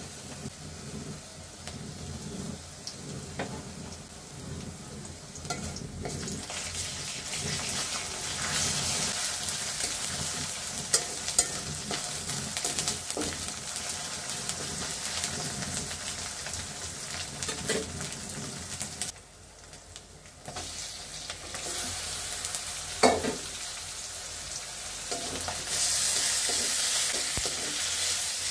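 Sliced onions and ginger-garlic paste sizzling in hot oil in a steel karahi, stirred and scraped with a metal spatula. The sizzling drops off briefly about two-thirds of the way through and is louder near the end, with tomato pieces in the pan.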